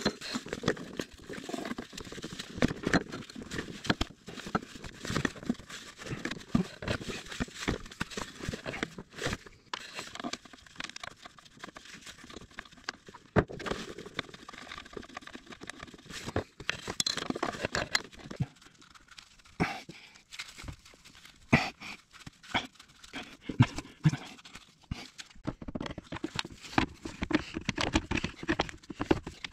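Gloved hands working a silicone intercooler charge pipe onto a turbocharger outlet: irregular rubbing, rustling and small knocks of handling.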